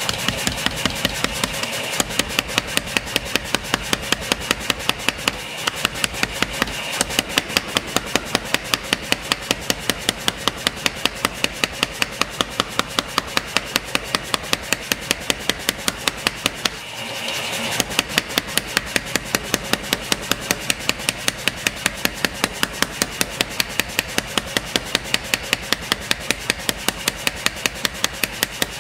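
Motor-driven mechanical power hammer pounding a red-hot knife blank in a fast, even rhythm of several blows a second, over the steady running of its drive. The blows pause briefly about 17 seconds in, then resume.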